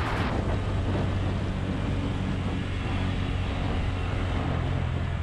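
Motorcycle engine running steadily while riding, with wind and road noise on the bike-mounted camera.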